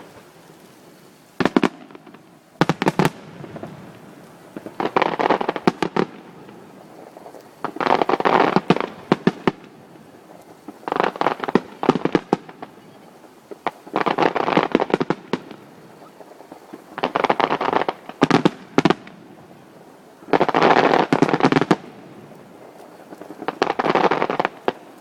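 Aerial fireworks bursting in repeated volleys about every three seconds, each volley a cluster of sharp bangs and crackle lasting about a second.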